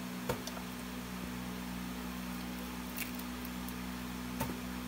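Dry, papery onion skin being peeled off by hand, with three brief faint clicks and crackles over a steady low hum.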